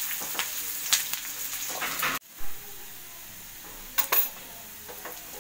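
Sliced onions sizzling in hot oil in a frying pan, with a silicone spatula scraping and stirring them. The sound breaks off for an instant about two seconds in, then the sizzle goes on more quietly, with a couple more spatula scrapes.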